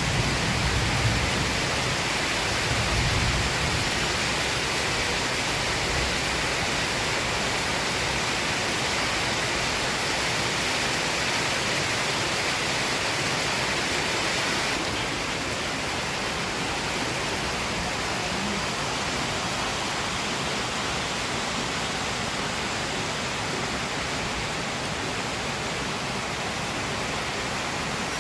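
Steady heavy rain falling, a continuous even hiss with rainwater pouring and running off. The hiss eases slightly about halfway through.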